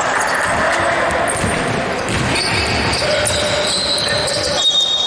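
Basketball game play in a gym: a basketball bouncing amid the steady clatter of play. A steady high-pitched tone starts near the end.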